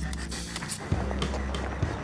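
Background music: sustained low bass notes under sharp, rhythmic percussive hits, the bass note changing about a second in and again near the end.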